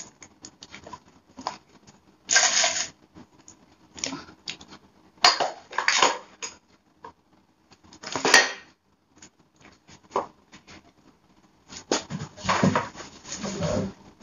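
Plastic bottles and small containers being handled and packed into a box, clattering and rustling in several short bursts, with heavier knocks near the end.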